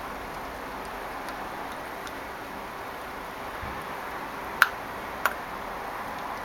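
Yellow Labrador puppy chewing a chicken leg bone: faint clicks of teeth on bone, then two sharp, louder clicks a little more than half a second apart, over a steady background hiss.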